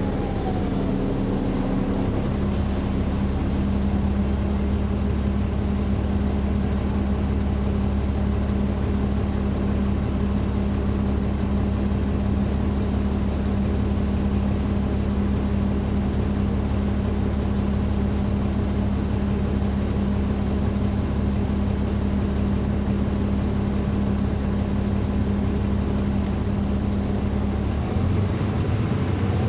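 Caterpillar C13 ACERT diesel engine of a 2009 NABI 416.15 transit bus, heard from inside the passenger cabin, running with a steady drone and a steady hum. A falling whine fades in the first moment, and the engine note changes near the end.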